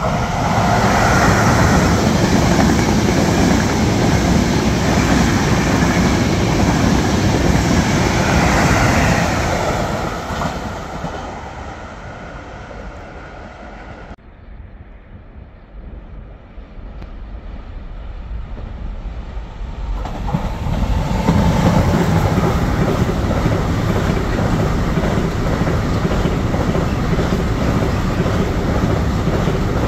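An electric passenger train runs past at speed, fading away about ten seconds in. After a quieter stretch, a long container freight train hauled by an E494 electric locomotive passes climbing, its wagons rolling steadily over the rails.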